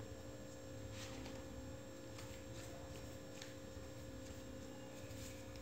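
Faint steady hum of room tone, with a few soft ticks and rustles from hands rolling and shaping cassava-starch dough.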